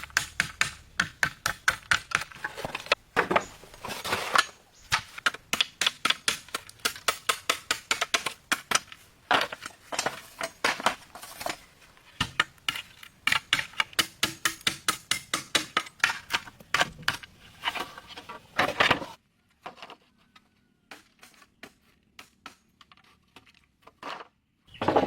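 A blade chopping in quick, regular strikes, several a second, which stop about three-quarters of the way through; a few faint clicks follow, then one short loud knock near the end.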